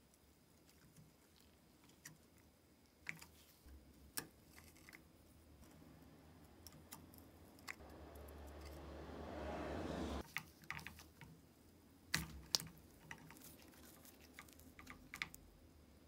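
Small metal clicks and taps of hand tools and fingers on an antique pepper grinder's rusty top plate, crank and pin as it is taken apart. A scraping rustle swells for about two seconds and stops abruptly just past the middle, and two sharper clicks come close together later on.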